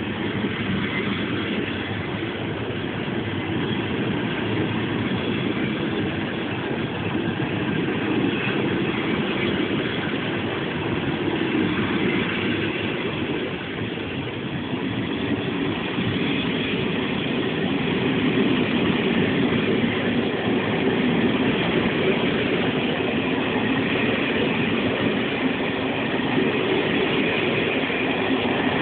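Long passenger train of sixteen carriages hauled by a class 151 electric locomotive, running on the rails with a steady rumble of wheels and rolling stock that grows a little louder in the second half.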